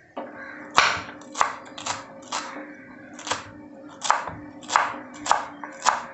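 Kitchen knife chopping fresh coriander, leaves and stems together: about a dozen sharp knocks in an uneven rhythm, over a steady low hum.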